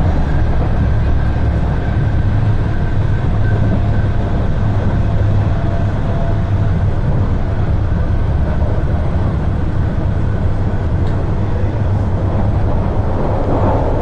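Istanbul M1 metro train running at speed, heard from inside the carriage: a loud, steady low rumble of wheels on rail with a faint steady whine over it. A short click about eleven seconds in.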